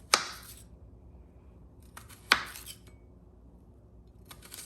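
Kitchen knife chopping through an onion and knocking down on the cutting board: two sharp knocks about two seconds apart, a third right at the end.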